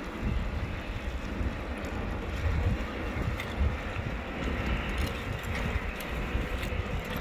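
Wind buffeting the microphone, with scattered faint sharp clicks and crackles from the crust of an advancing aa lava flow as its clinker cracks and shifts.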